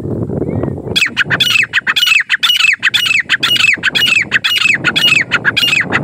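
Francolin (teetar) calling: a rapid, even series of loud, sharp notes, each falling in pitch, about four a second for roughly five seconds, starting about a second in.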